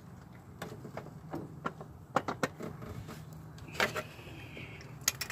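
Irregular metallic clicks and clinks of a hand wrench working on the starter's 14 mm mounting bolts, over a low steady hum.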